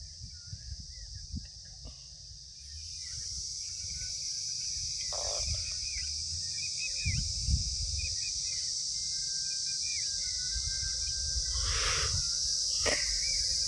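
Steady high-pitched insect chirring that swells a couple of seconds in and then holds, with scattered small bird chirps over it and a low rumble underneath.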